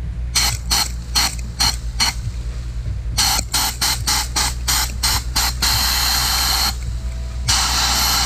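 Homemade compressed-air sandblasting gun blasting grit onto a motorcycle engine cover, hissing in short bursts: about five quick ones in the first two seconds, more in the middle, then two longer continuous blasts of a second or two each near the end.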